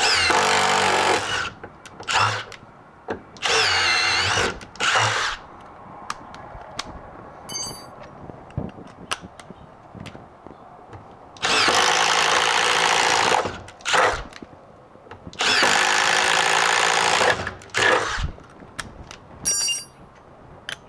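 Cordless impact driver boring holes through a wooden stud with a spade bit, with the rattling hammer of the impact mechanism under a motor whine that rises and falls. It runs in bursts: several short ones in the first five seconds, then two longer runs of about two seconds each in the second half.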